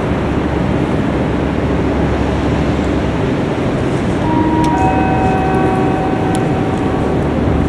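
Train rumbling through the station with a steady low noise. About four seconds in, a squeal of several steady high tones joins it for about three seconds.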